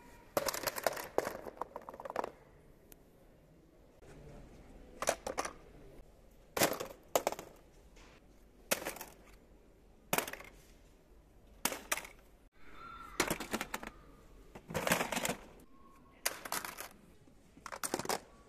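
Clatters and rattles of packaged tools and plastic boxes dropping into a plastic shopping basket, in short separate bursts every second or two.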